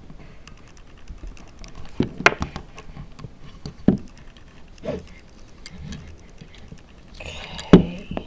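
Hands working a needle and cord through knitting on a knitting loom: scattered small clicks and taps, with a few sharper knocks, the loudest near the end.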